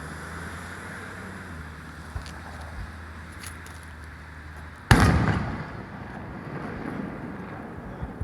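A firework shell bursting overhead with one loud boom about five seconds in, its rumble trailing off over about a second. A few faint pops come before it, over a steady low hum.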